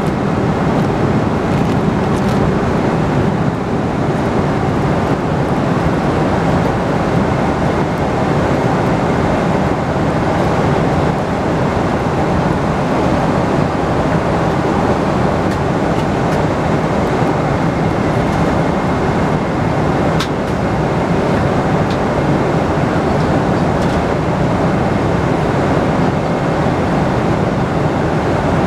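Steady cabin noise inside a Boeing 747-400 airliner: an even rush of air and engine drone, with a faint steady high whine and a few small clicks.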